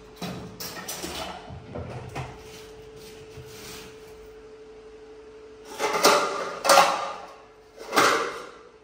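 Steel dishes clattering on a wall-mounted dish rack as a steel bowl is taken down: light clinks in the first two seconds, then three loud clangs in the second half, over a faint steady hum.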